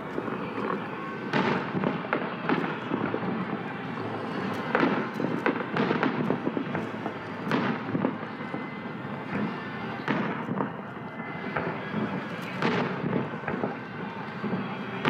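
Aerial fireworks shells bursting overhead: a run of bangs every second or two at uneven spacing, with crackle and rumble between them.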